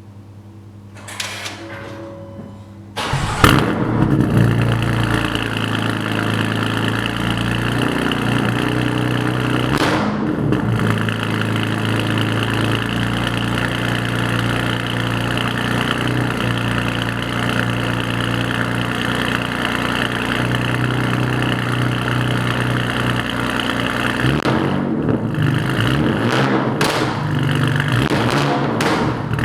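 BMW S55 twin-turbo straight-six with an aftermarket exhaust starting up about three seconds in with a loud flare, then idling steadily. Near the end come a few short throttle blips.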